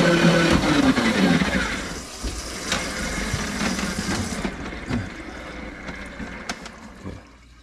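An electric motor hums steadily and winds down to a stop, its pitch falling, about a second and a half in. Running, gurgling water follows and slowly fades, with a few sharp clicks near the end.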